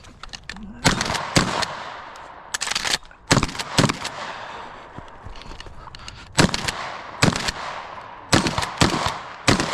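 Shotgun firing about ten shots in quick pairs and threes about half a second apart, each shot with a ringing tail, with a cluster of lighter clicks between the second and third pairs.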